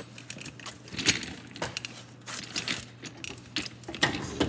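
Irregular metallic clinks and rattles of tools and suspension hardware being handled, with the sharpest clinks about a second in and near the end, over a steady low hum.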